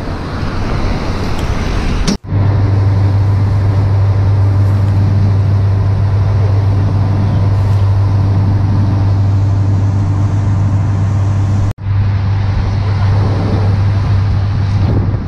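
A tour boat's engine drones steadily at a constant low pitch, with wind and water noise on top, from about two seconds in. Before that there is a short stretch of wind and street traffic noise.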